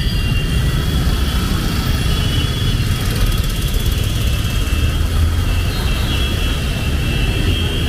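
Steady low rumble of vehicle traffic, with a steady high-pitched whine over it.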